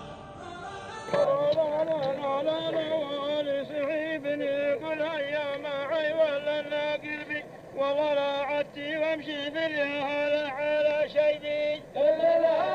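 A solo male voice chanting a poem in a long, wavering Arabian melody, coming in about a second in and sung in drawn-out phrases with short breaks between them.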